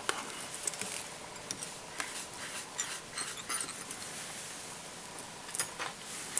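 Faint scattered ticks and scratches from fingers handling tying thread and tinsel on a hook held in a fly-tying vise, over a steady hiss.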